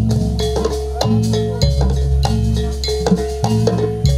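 Jaranan dance music: quick, sharp drum and wooden strokes in a steady rhythm over repeated deep, long-held tones, with one middle note held throughout.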